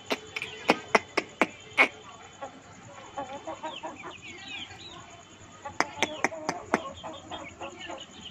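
Chickens pecking spinach leaves off a concrete floor, their beaks tapping sharply: a quick run of taps in the first two seconds and another about six seconds in. Soft clucking and high bird chirps come in between.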